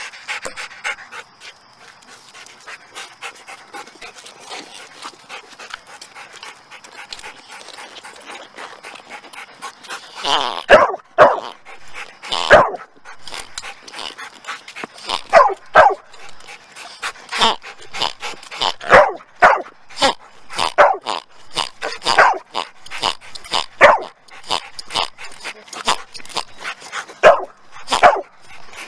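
Electronic toy pig oinking: after a quieter start, a run of loud, short, irregular oinks begins about ten seconds in.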